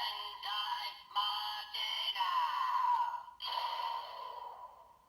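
Electronic sound effects and synthesized voice from a Zenkaiger DX toy playing the Majin Sentai Gear: bright electronic tones in several short bursts, calling out the gear's name, then fading away near the end.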